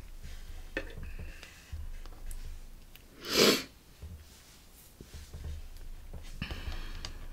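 One short, sharp breath through the nose, a sniff or snort, about halfway through, with faint small knocks around it.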